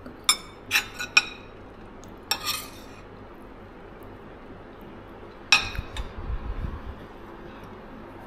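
Cutlery clinking against plates and bowls during a meal: three sharp clinks in the first second or so, another clatter about two and a half seconds in, and a louder knock with low thuds about five and a half seconds in.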